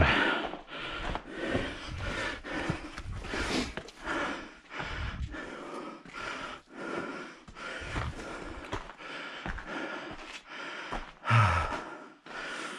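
A hiker's footsteps scuffing and knocking on rock, with heavy breathing between the steps. There is a louder thump about eleven seconds in.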